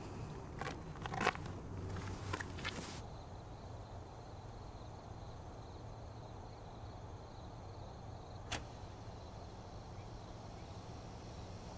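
Faint steady low hum with a thin high whine, from a stadium floodlight warming up. A single sharp click comes about eight and a half seconds in. The first few seconds, before the hum, hold scattered light clicks and rustles.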